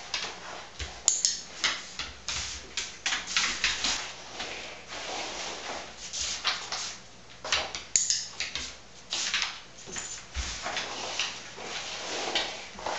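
A dog sniffing in quick bursts at cardboard egg cartons, with a few sharp clicks, then the cartons being scraped and slid across a vinyl floor as they are moved.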